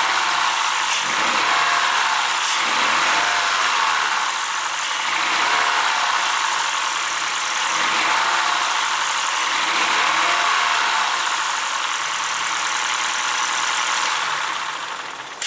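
Honda Freed+ Hybrid's 1.5-litre four-cylinder petrol engine running steadily, heard close up as a hissy mechanical whir that swells and eases every couple of seconds. It fades out near the end.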